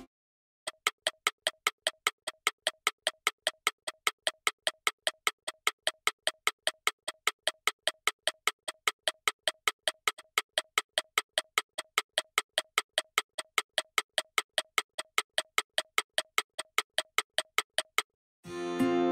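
Clock-ticking sound effect: a steady run of sharp, slightly pitched ticks, about three a second, standing for time passing. Acoustic guitar music comes back in near the end.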